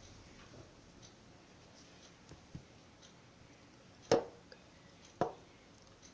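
Faint room tone broken by two short, sharp knocks a little over a second apart, about four seconds in, with a few fainter ticks.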